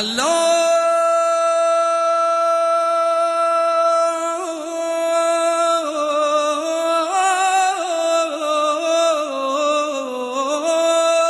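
Music: a solo melodic line that starts abruptly on a long held note, then moves through slow, wavering, ornamented turns with vibrato.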